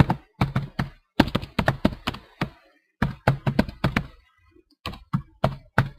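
Typing on a computer keyboard: quick runs of keystrokes in four bursts, with short pauses between them.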